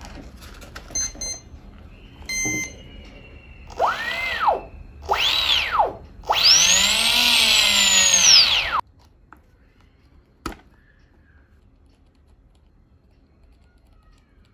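MM1908 2050KV brushless outrunner motor with no propeller, run through its ESC from a hand-turned servo tester. A few short electronic beeps from the ESC arming, then the motor's whine rises and falls three times, each run longer and higher than the last, the third cutting off suddenly. A single click follows.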